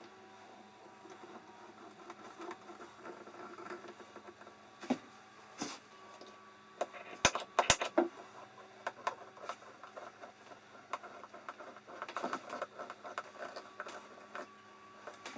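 Small clicks, taps and knocks of hand tools and metal hardware being handled and fitted, with two sharp knocks about seven seconds in and a run of light clicks near the end, over a faint steady hum.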